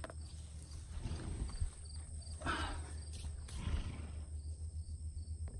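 Jasper sharpening puck rasping along a steel axe edge in about three rough strokes, a second or so apart, with crickets chirping steadily.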